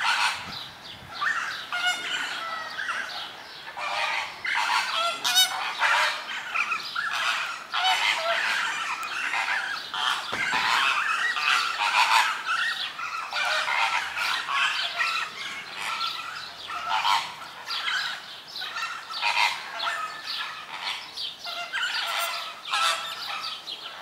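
A flock of greater flamingos calling, with many goose-like honks overlapping continuously.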